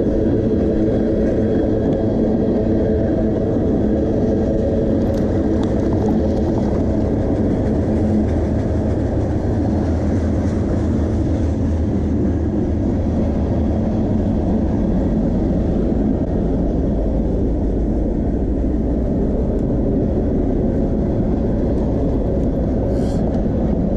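Freight train of tank cars rolling past: a loud, steady rumble with a many-toned drone that holds unchanged throughout.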